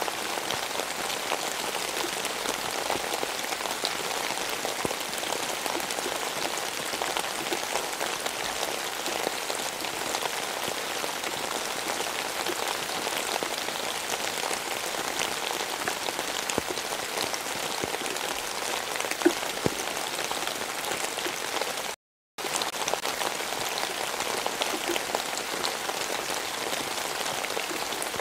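Steady rain with many close individual drops ticking. The sound cuts out completely for a split second about three quarters of the way through.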